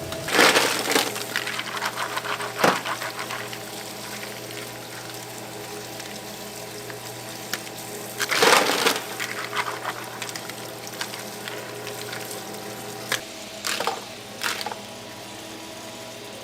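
Water splashing and sloshing several times, with loud bursts about half a second in and again near the middle, over the steady hum of kitchen machinery.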